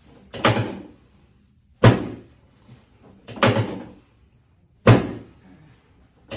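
Pelvic drop section of a chiropractic drop table clunking down again and again under the chiropractor's adjustment thrusts, about every one and a half seconds. Loud sharp clunks alternate with softer doubled ones.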